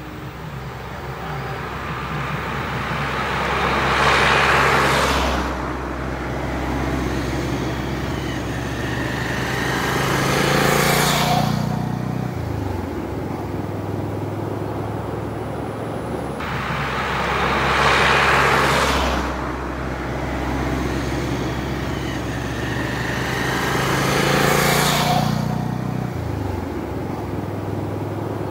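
Vehicle engines idling with a steady low hum, while road traffic passes four times, each a swell of engine and tyre noise that rises and fades, about seven seconds apart. The second and fourth passes fall in pitch as they go by.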